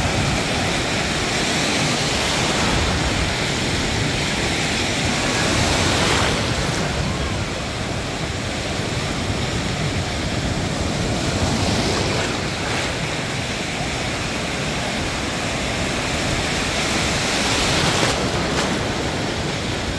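Ocean surf washing continuously, with waves swelling and easing every few seconds, and some wind buffeting the microphone.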